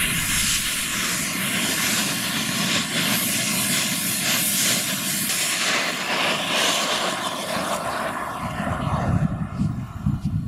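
Small model-jet turbine fitted to a Bobby Car ride-on toy running at power as it drives past: a steady jet rush with a high thin whistle. The whistle stops about halfway through, and the rush fades near the end as the car moves away.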